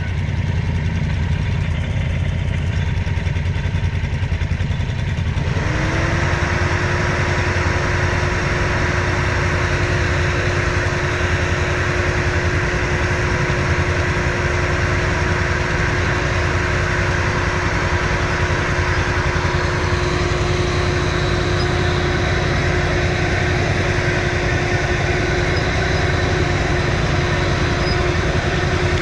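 Quad (ATV) engine running steadily; about five seconds in it revs up slightly and then holds an even, higher note.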